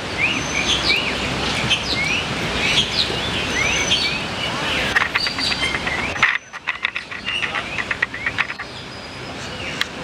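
Aviary birds calling: many short rising chirps and squeaks over a steady background hiss. About six seconds in the hiss drops away and a quick run of ticks follows for a couple of seconds.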